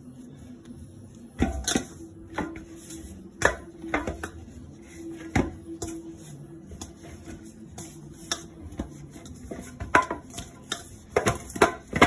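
Hands kneading and pressing a ball of maida (refined flour) dough in a stainless steel bowl: irregular thumps and knocks of the dough and hands against the steel, coming closer together near the end.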